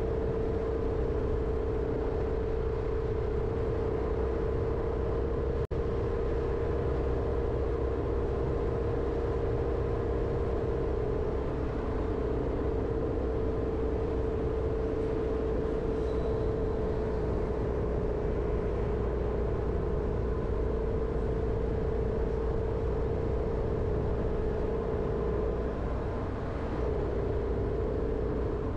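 Jeep Renegade driving at a steady pace: continuous engine and tyre rumble with a steady droning hum.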